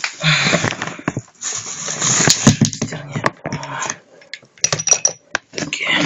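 Hands rummaging through a cardboard box of motorcycle spare parts: rustling and scraping with many sharp clicks and knocks.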